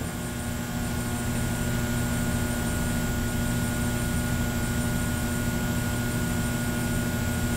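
Steady low hum with a background hiss, unchanging throughout.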